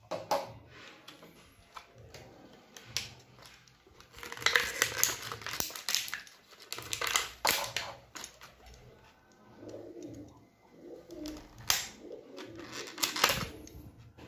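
Clear plastic blister packaging crackling and snapping as it is cut open with a box cutter and the Beyblade parts are pulled out, busiest about a third of the way in, with two sharp snaps near the end. A low cooing sound runs under the second half.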